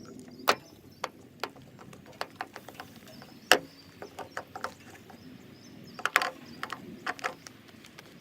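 Fluffy slime being mixed and kneaded by hand: irregular sticky clicks and pops, with a loud snap about three and a half seconds in and a quick cluster of pops about six seconds in.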